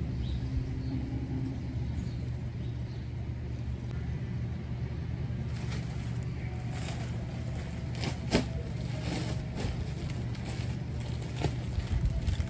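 A steady low rumble in the background, with rustling and knocks a little past halfway, the sharpest about eight seconds in, as a plastic bag of topsoil is carried over and set down.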